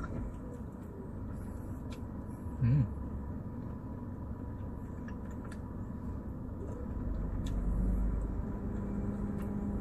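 Steady low background rumble with faint small clicks, and a short hummed sound from a voice about three seconds in.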